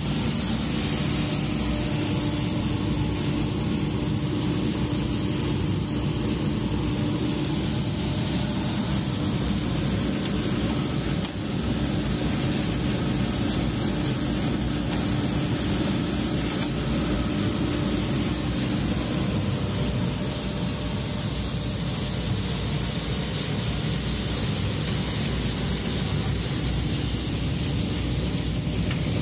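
Graintec seed cleaner running steadily, its electric-driven auger pushing phacelia seed through a perforated sieve tube: an even machine noise with a faint hum that fades about two-thirds of the way through.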